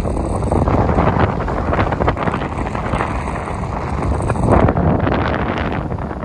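Strong wind buffeting the microphone aboard an Excess 11 sailing catamaran under way, a loud gusting rumble.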